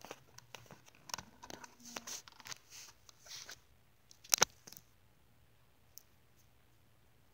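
Plastic toy horses and a toy fence being handled on carpet: small clicks, taps and rustles, with a sharp double knock about four and a half seconds in.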